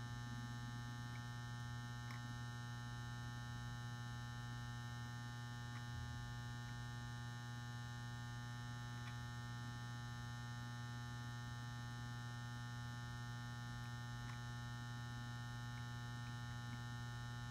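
Magnetic M155 pulse-start metal halide ballast humming steadily at mains frequency while the 400 W lamp runs up toward full brightness, with a few faint ticks.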